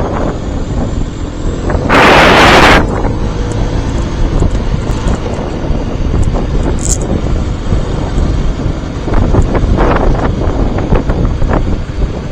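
Wind noise on a helmet-mounted camera while riding a 2017 Mondial HPS 125i motorcycle, with the motorcycle's engine faintly beneath it. About two seconds in comes a louder blast of noise, lasting under a second.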